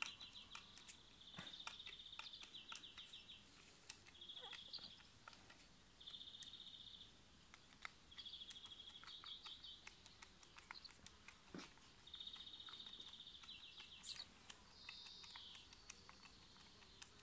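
Faint, high, rapidly pulsed trills about a second long from a small animal, repeating every two seconds or so. Scattered light clicks and taps come from a knife and its plastic handle being handled.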